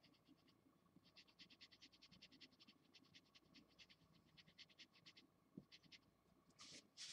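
Faint scratching of a felt-tip marker on paper in quick back-and-forth hatching strokes, about eight a second, in runs broken by short pauses, with two longer, louder strokes near the end.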